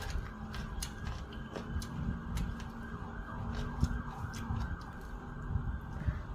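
Bare fingers mixing rice and curry in a ceramic bowl: scattered short clicks and soft squishing over a steady background rumble.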